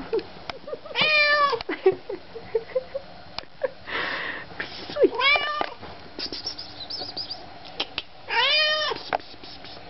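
Domestic cat meowing three times, a few seconds apart, each meow a short call that rises and falls in pitch. A brief rustle about four seconds in.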